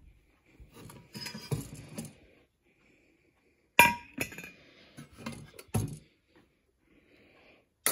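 Glass and ceramic housewares clinking and knocking as they are unpacked and set down, with one sharp ringing glass clink about four seconds in.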